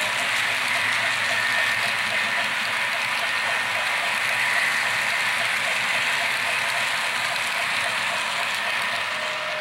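HO-scale model freight cars rolling past on metal track: a steady rolling hiss of small metal wheels with a rapid, regular clicking.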